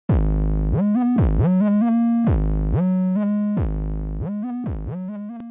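Electronic intro music: a repeating run of synthesizer notes, each sliding up in pitch as it starts and dropping away as it ends. It fades out toward the end.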